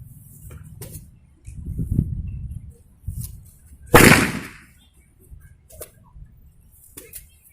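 Pecut bopo, a roughly three-metre jaranan whip braided with raffia, cracking once loudly about four seconds in, like a gunshot.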